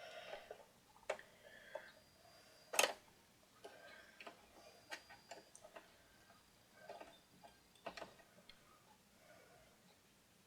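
Faint, irregular clicks and taps of small metal and plastic parts as the 8-track play/record head bracket is worked on with a screwdriver, with one sharper knock about three seconds in.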